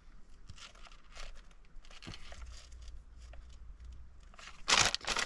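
Food packaging crinkling and rustling, with small clicks, as ingredients are handled; a louder burst of rustling comes near the end.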